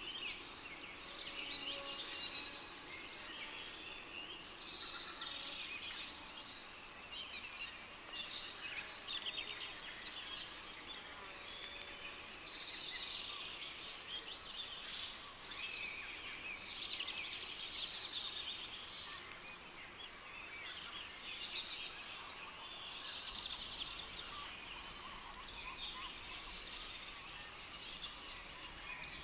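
Rainforest ambience: a cricket chirping in rapid, evenly spaced pulses, with many birds calling and chirping over it. The cricket stops for a couple of seconds about two-thirds of the way through, then starts again.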